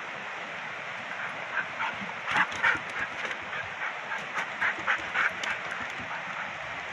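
Irregular footfalls knocking on the planks of a wooden boardwalk, a run of short clattering steps from about a second in until near the end, over a steady rushing background.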